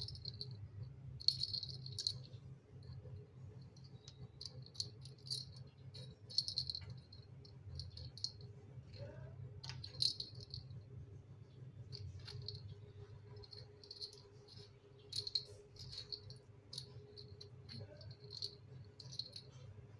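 A kitten batting a small toy ball on a tile floor: short, irregular, high-pitched rattles and now and then a sharp click as the ball knocks against the floor and chair legs, over a low steady hum.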